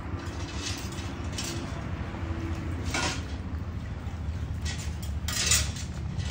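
Soup boiling hard in a pot over a wood fire in a clay stove: a steady low rumble with a few short crackles, the loudest about five and a half seconds in.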